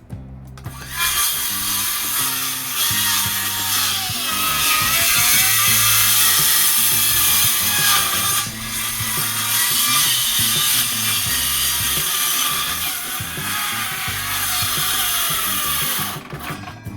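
Power saw cutting into pallet wood: it starts about a second in, runs hard, its pitch sagging and recovering twice under load, and stops shortly before the end.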